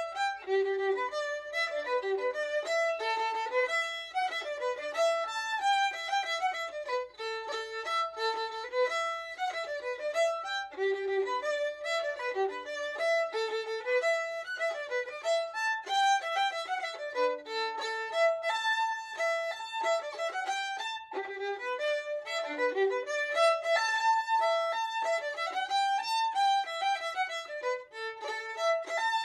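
Background music: a solo violin playing a melody of quick notes.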